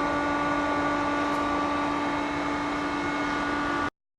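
A steady machine hum with several held tones, typical of workshop ventilation or extraction equipment running. The sound cuts off abruptly to silence near the end.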